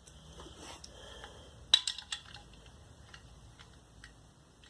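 Steel socket and hand tools clinking as a socket is tried on a bolt head for size: scattered light metal taps, with one sharp click a little under halfway through.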